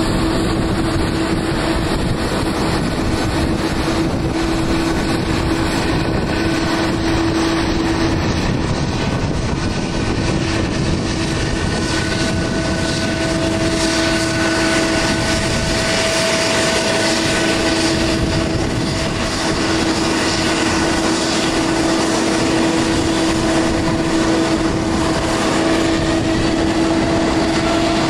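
Rolls-Royce Trent XWB turbofans of an Airbus A350-900 running at low taxi thrust: a steady jet whine over a broad rush. Near the end one tone begins to rise in pitch.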